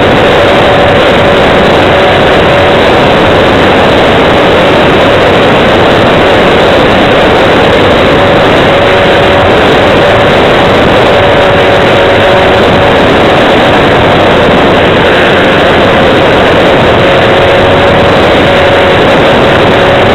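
Homebuilt RC model plane's motor and propeller running at a steady, unchanging pitch, loud and close over a constant rush of noise, as heard from on board the plane.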